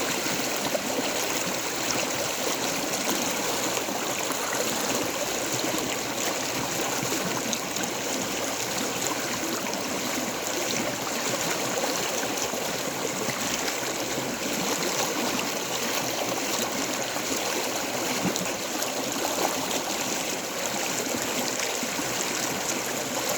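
Water flowing steadily in a stream, a continuous even rush and babble.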